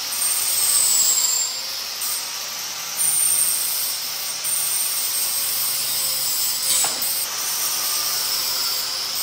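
Angle grinder grinding the steel mini bike frame: a steady high motor whine over a rush of grinding noise. It swells louder briefly about a second in and again around three seconds in.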